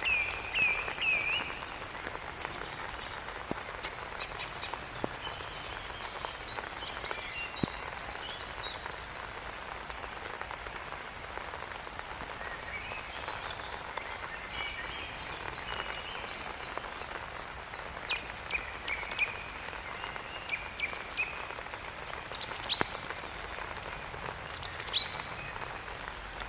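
Steady rain falling, with a songbird singing short whistled, chirping phrases at intervals over it.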